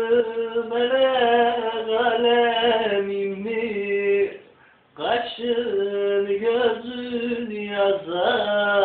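A man singing a Turkish song unaccompanied, in long held, wavering notes, with a short pause for breath about halfway through.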